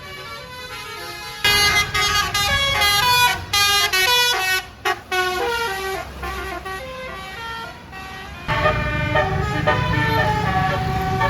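Basuri multi-tone bus air horn ('telolet') playing a fast tune of short stepped notes, loud in a run from about a second and a half in to five seconds and again from about eight and a half seconds. A low vehicle rumble runs under the later part.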